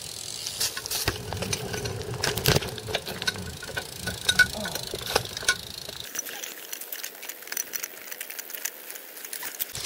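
BMX bike rattling and clicking as it is walked along on its back wheel. A low rumble stops about six seconds in, leaving only scattered ticks and clicks.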